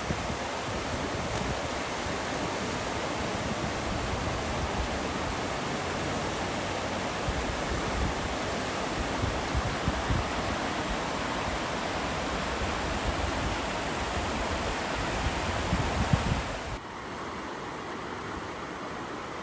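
Rushing river water, a steady loud rush, with wind buffeting the microphone in low gusts. Near the end it drops suddenly to a quieter, duller hiss.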